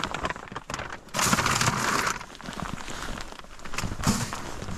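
Rustling and crinkling as food bags and packaging are handled and packed away, with scattered small knocks and clicks and a louder rustle about a second in.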